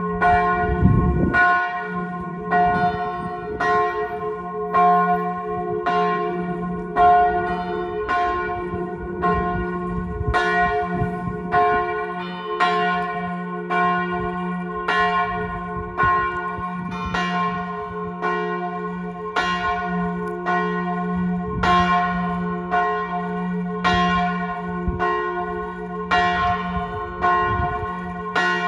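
Church death knell (glas): a large church bell swinging in full peal, struck about once every three-quarters of a second over its steady deep hum, with strokes on a second bell mixed in.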